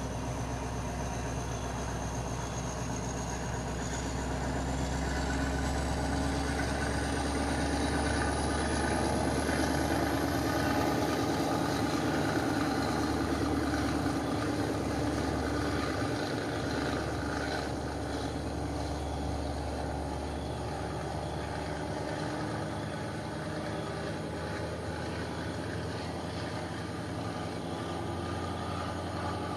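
Diesel locomotive of a passenger train pulling out of the station: its engine runs steadily and grows louder through the middle, while a thin high whine climbs in pitch, then the sound eases off as the train draws away.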